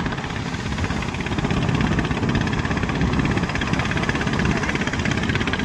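Engines of small wooden fishing boats running offshore, a steady rapid putter, over surf washing onto the beach.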